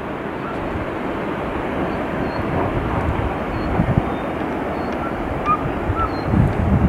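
Wind buffeting the camera microphone outdoors: a steady rushing noise with an uneven low rumble that grows a little louder, gusting near the end. A few faint short chirps sound over it.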